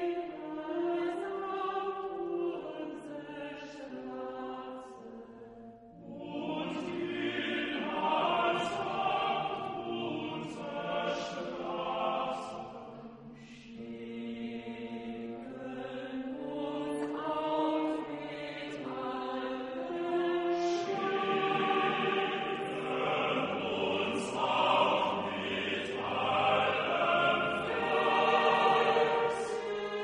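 A group of voices singing slow, held chords, with a short break about six seconds in.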